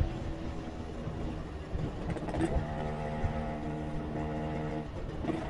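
Motorcycle engine running at steady revs under a low rumble of wind and road noise. Its pitch steps up about halfway through.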